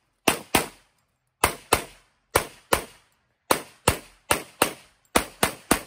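Rapid pistol fire from a Deep River Customs competition handgun: about seventeen sharp shots in quick pairs and runs of three or four, with short gaps between strings.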